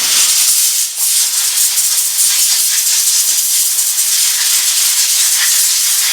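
Loud hiss of compressed air blowing, starting suddenly, dipping briefly about a second in and cutting off after about six seconds.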